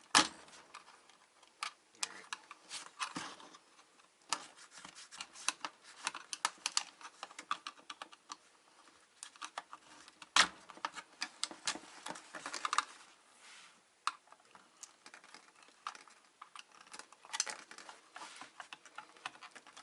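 Irregular clicks, taps and snaps of hard plastic and metal parts as a UPS unit is pried and forced apart by hand and tool. There are a few louder knocks: one at the start, one about ten seconds in, and another near the end.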